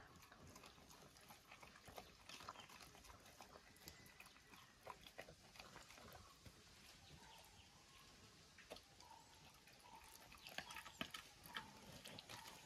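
Faint, scattered crunching and clicking of a dog chewing chicken bones.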